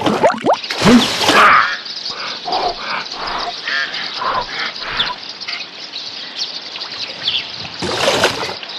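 Cartoon soundtrack of birds chirping by water, with several loud effect sounds in the first second and a half and a splash-like burst of noise about eight seconds in.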